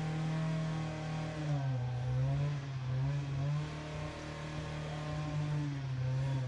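Petrol lawn mower engine running steadily, its pitch dipping about a second and a half in and climbing back a second later.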